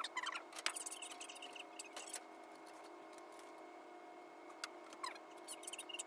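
Fast-forwarded room audio: brief high squeaky chirps and sharp clicks over a steady electrical hum.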